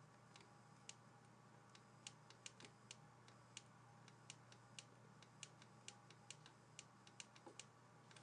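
Faint, irregular clicks of a stylus tapping a tablet while handwriting, about two or three a second, over a steady low electrical hum.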